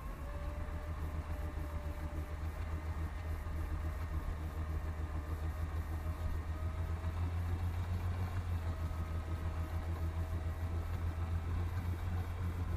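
Jet ski engine running steadily, a deep hum with a fainter whine above it that wavers slightly, as it powers a flyboard through its water hose.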